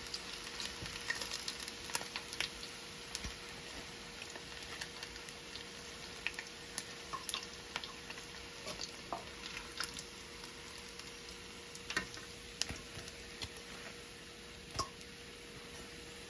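Chicken pieces frying in hot oil: a steady sizzle with irregular pops and crackles scattered through it.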